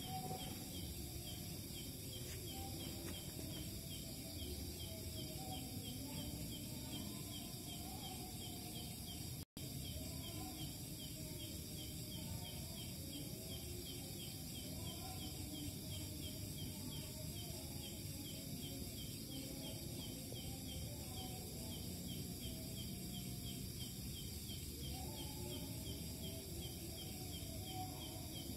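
Night insects chirping steadily: a fast, evenly pulsing chirp over several steady high-pitched trills, above a low background rumble. The sound cuts out for an instant about ten seconds in.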